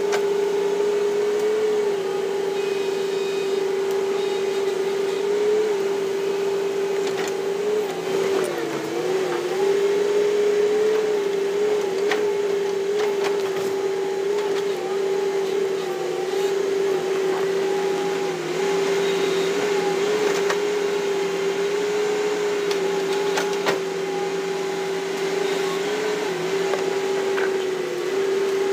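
Hitachi Zaxis 200-5G excavator running with a steady whine from its diesel engine and hydraulics as the boom and bucket move out to grab a log. The pitch dips and wavers briefly about eight seconds in, and a few sharp knocks come through now and then.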